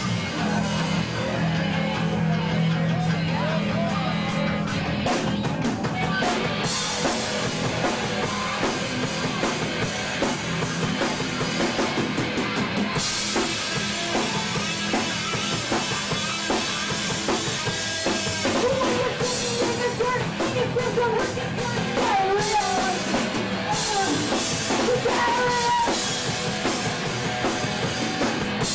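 Punk rock band playing live: drum kit with loud electric guitar and bass.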